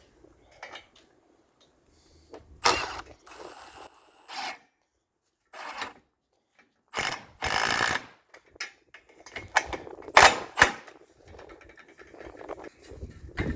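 Mechanical rattling and clacking in separate short bursts with quiet gaps between, ending in two sharp knocks close together.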